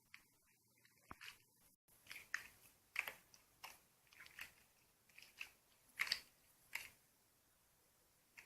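Short, irregular crunching sounds, about a dozen over several seconds, with quiet gaps between them.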